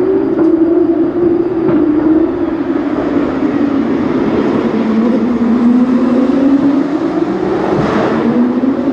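Engine running with a steady drone that slowly sinks in pitch and rises again, over a wash of background noise, with a few faint knocks.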